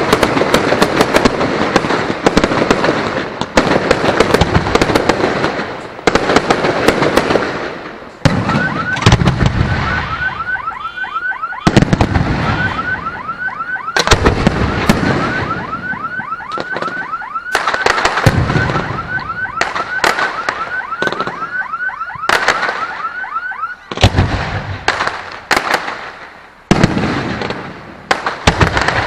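Aerial fireworks shells bursting one after another, with crackling between the loud bangs. From about nine seconds in until about twenty-four seconds, a high warbling tone repeats quickly and evenly over the bangs.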